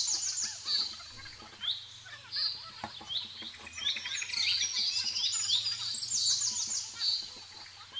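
Small birds chirping: short high chirps repeated every second or so, with a rapid trill at the start and another about six seconds in.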